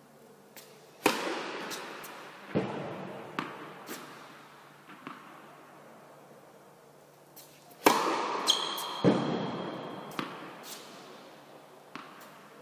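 Two tennis serves in a large echoing indoor hall: each a sharp crack of racket strings on ball, followed about a second and a half later by a duller thud further off. A few light ball bounces fall in between.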